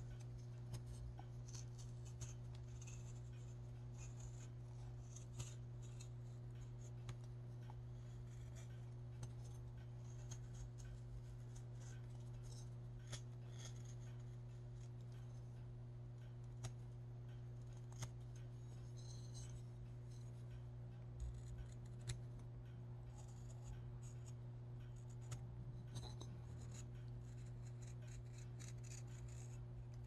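Scattered small scratching, rubbing and clicking sounds of close-up handwork, over a steady low electrical hum.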